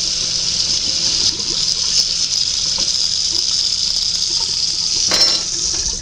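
Kitchen tap running steadily as a spoon is rinsed under it, with a single knock near the end.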